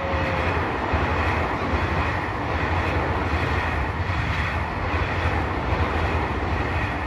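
Electric commuter train passing close by: a steady, loud rumble of wheels on rail.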